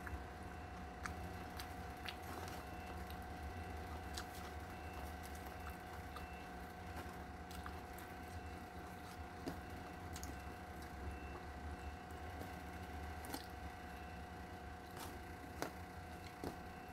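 Quiet eating sounds: scattered soft clicks and squishes as fingers pick up rice and food from a steel tray and the food is chewed, over a steady hum. A couple of sharper ticks come near the end.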